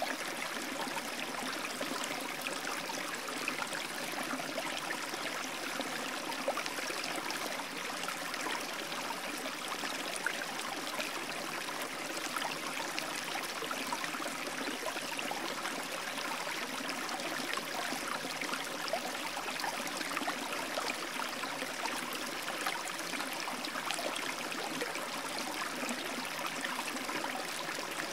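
Steady rushing of running water, like a stream, with no change in level.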